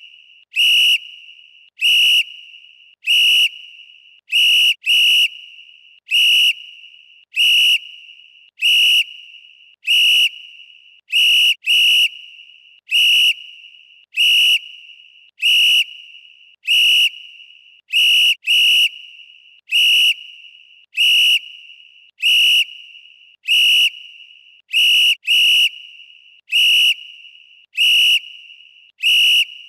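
Referee whistle blown in short, sharp blasts, one about every second and a quarter, now and then two in quick succession. Each blast is a steady high tone that ends in a short fading echo.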